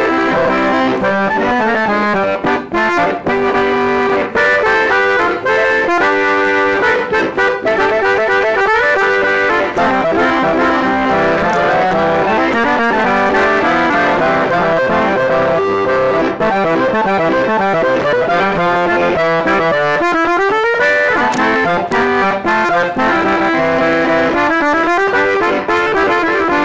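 Three-row button accordion in G, C and F, a Gabbanelli, played solo in conjunto style: quick runs of melody notes over chords, loud and unbroken.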